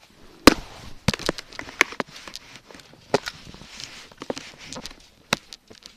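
Objects knocking and clicking as they are handled, with a faint rustle between. The loudest knock comes about half a second in, followed by a dozen or so smaller knocks at uneven spacing.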